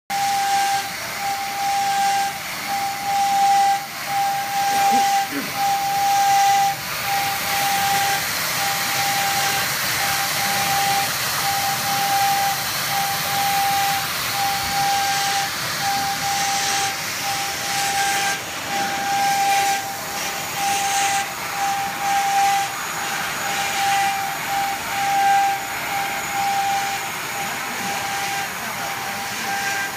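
FQ1400D paper slitting and rewinding machine running: the paper web rushing through the slitter blades and onto the rewind shafts as a steady hiss. A high whine rides over it, cutting in and out at an even rhythm.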